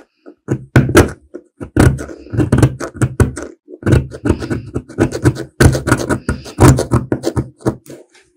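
Irregular series of sharp knocks and thuds, several a second with brief pauses, from work on a rusty metal lighter.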